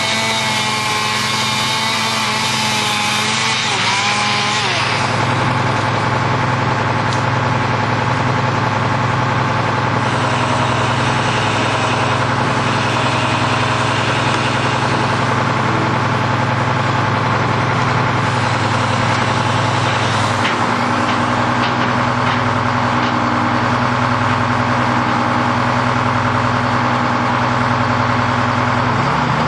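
Heavy engine running steadily, its tone changing about four to five seconds in and again about two-thirds of the way through.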